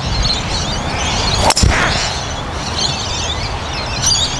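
Golf driver striking a ball off the tee: one sharp crack about a second and a half in, from a well-struck drive. Birds are chirping in the background throughout, over a steady low rumble of wind.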